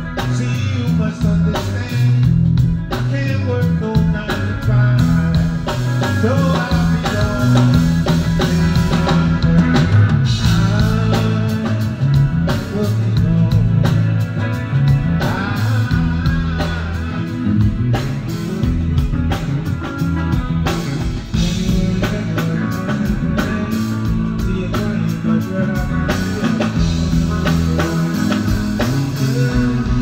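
Live band playing blues-rock: electric guitar over a drum kit, with a man's voice singing at times.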